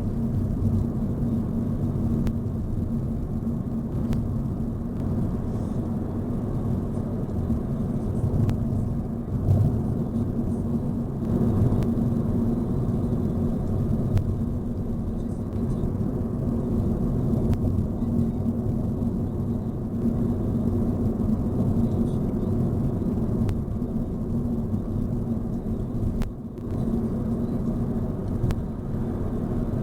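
Steady low rumble of a car on the move, heard from inside the cabin, with a constant hum under it and small swells in level.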